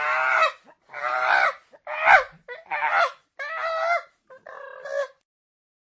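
A bird giving a series of six harsh calls, about one a second, the last one fainter.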